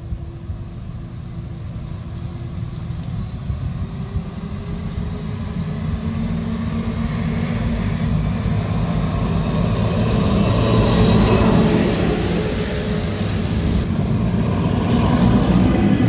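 Heavy farm machinery driving past on a paved road: a New Holland CR8.90 combine with its folded corn head, then a tracked tractor towing a tracked grain cart. Their diesel engines drone and the tracks rumble, growing louder as each machine approaches. The sound is loudest as the combine passes, then swells again as the tractor and cart come alongside.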